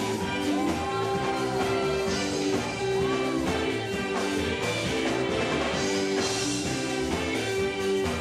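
Live gospel band music with electric guitar, playing steadily.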